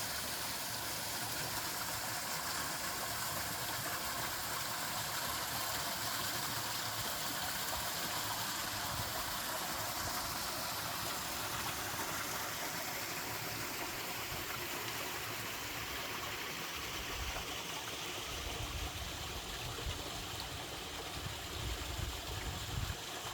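Mountain stream pouring over a small waterfall, a steady rushing of water. Low rumbles come in over the last several seconds.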